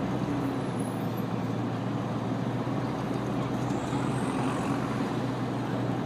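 City street traffic: vehicle engines running in a steady low hum, with no single event standing out.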